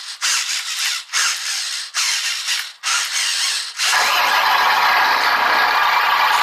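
Steering servos of an HG P803A 8x8 RC truck whirring in four short back-and-forth bursts as the steering is worked. About four seconds in, a louder steady mechanical running sound starts and keeps going.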